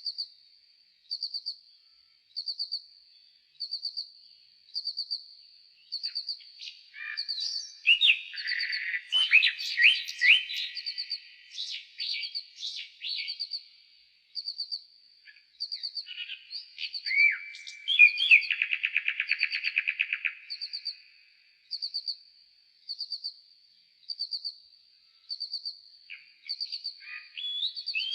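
Nightingale song played slowed down. A short high note repeats about every second and a third throughout, and two longer phrases of whistled notes come about a quarter and two-thirds of the way in, the second ending in a rattling trill.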